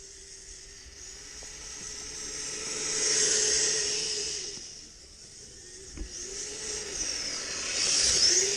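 Snow-clearing machine's engine running with a steady whine that sags briefly in pitch a few times, under a rushing hiss that swells twice, typical of snow being blown out during clearing.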